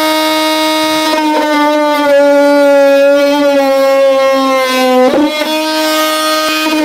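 Cordless oscillating multi-tool, on a DeWalt-compatible battery, plunge-cutting into plywood: a steady, loud buzzing whine whose pitch drops slightly as the blade works, with a brief break about five seconds in.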